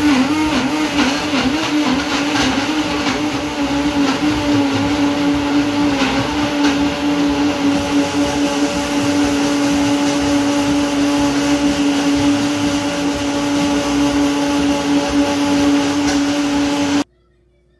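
Countertop blender running, blending a yellow drink. Its motor pitch wobbles for the first couple of seconds and then holds steady, and it cuts off suddenly near the end.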